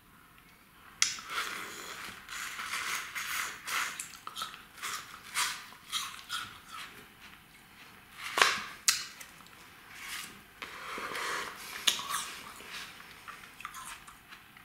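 Chewing and crunching a big bite of frozen cola-flavoured ice, heard close up: a run of irregular crunches and sharp mouth clicks that starts about a second in.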